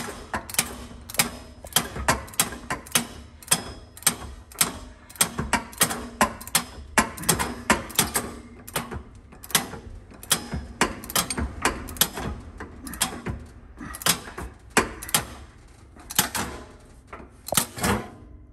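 Socket ratchet wrench clicking as it tightens a new anode rod's hex head into the top of a tank water heater, a run of sharp clicks about two or three a second that stops near the end.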